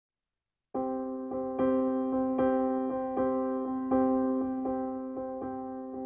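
Background music: a piano-like keyboard playing a gentle, evenly paced run of notes, coming in after a brief gap of silence about three-quarters of a second in.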